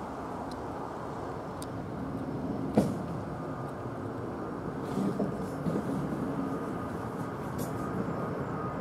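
Airbus A321neo's Pratt & Whitney PW1100G geared turbofans heard from the ground as a steady, deep rumble while the jet climbs away after takeoff. One sharp knock sounds about three seconds in.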